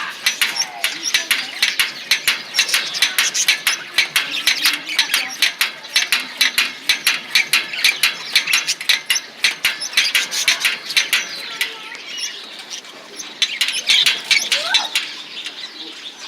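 A group of small birds chattering close by, with a fast, dense stream of high chirps that eases off for a moment about three-quarters of the way through and then picks up again.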